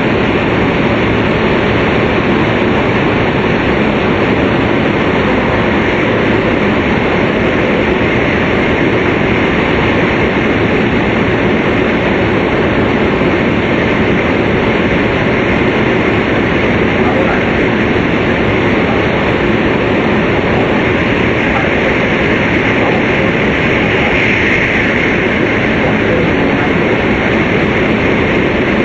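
Steady, loud rumble and rush of a Tohoku Shinkansen Hayate train at speed, heard from inside the passenger car.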